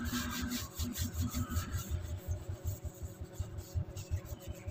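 Hand-scrubbing of a kitchen range hood's greasy underside: a fast, uneven run of rubbing strokes, several a second, working at caked-on grease that will not come clean.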